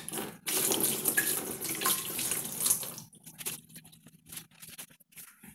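Dirty cleaning liquid pouring out of a car intercooler and splashing into a plastic bowl for about three seconds, then only a few small splashes and drips as it stops.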